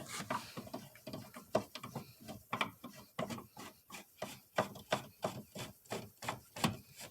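Plastic steering column cover being fitted and a screw driven into it by hand: a run of short, irregular clicks, about three or four a second, with rubbing and scraping between them.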